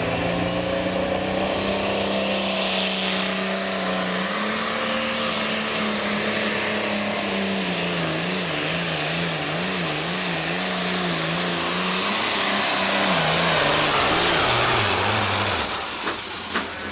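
Turbocharged diesel engine of an International Harvester pulling tractor running hard under load as it drags the sled, with a high turbo whine that climbs in the first few seconds and then holds. The engine's pitch wavers through the middle, then falls and the whine drops away near the end as the tractor slows to a stop.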